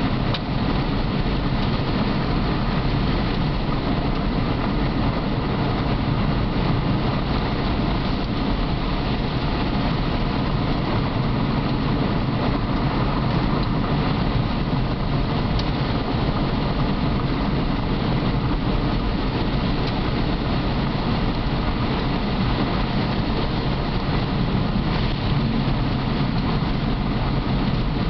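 Steady road noise inside a moving car's cabin: tyres running on a gravel road, with engine hum underneath.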